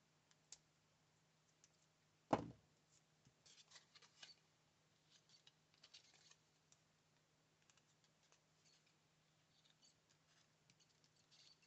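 Faint scissors snips and paper rustles as a piece of cardstock is cut down, with a single thump about two seconds in.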